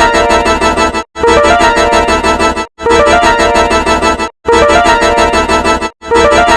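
A short electronic keyboard jingle, about a second and a half long, played over and over. Each repeat stops abruptly in a brief moment of silence before the next starts.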